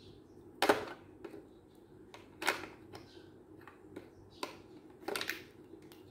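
Hard plastic clacks and knocks as a toy car and its loose wheel are handled and pushed together: a handful of separate sharp knocks, the loudest about a second in and a quick cluster near the end.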